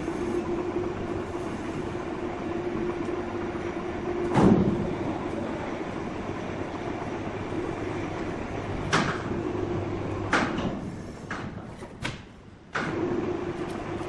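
A heavy sawn log of red incense wood, lowered on a crane's steel cables, comes down on the concrete floor with one loud, low thud about four seconds in, over a steady machine hum. Two sharper knocks of wood follow later, and the hum drops out briefly near the end.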